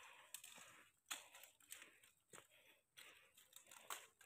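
Faint footsteps crunching on a gravelly dirt trail, irregular steps with light scuffing between them.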